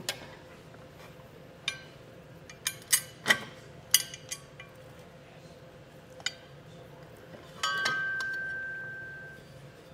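Metal parts of an air helper spring assembly, a steel bracket, bolts and roll plate, clinking and tapping as they are handled and fitted together, a few scattered clicks. Near the end a louder clink leaves a metal part ringing with one clear tone that fades over about two seconds.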